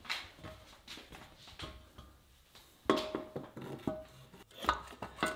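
Scattered light metallic clinks and knocks, with a few short squeaks, as a steel two-stroke expansion-chamber exhaust pipe is handled and pushed onto a dirt bike's engine. The sounds get busier about three seconds in.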